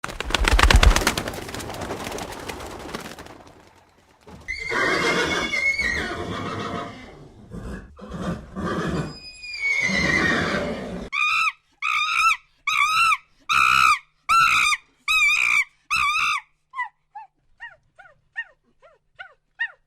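A loud rough rush of noise for about three seconds, then a horse neighing in long wavering whinnies. These are followed by a run of short, evenly spaced calls at about two a second, which give way near the end to fainter, quicker falling chirps that die away.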